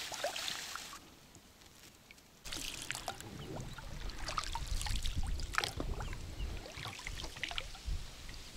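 Inflatable boat moving along the water: water splashing and lapping against the hull, with many short slaps and a low wind rumble on the microphone that starts suddenly about two and a half seconds in.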